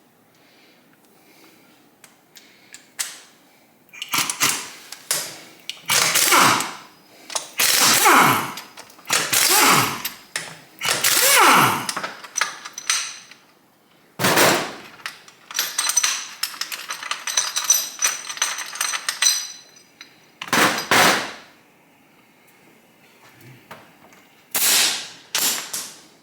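A power tool rattling in a string of short bursts, each about half a second to a second long, its pitch sweeping up and down within some bursts, then two more bursts near the end, as fasteners are worked on the engine during teardown.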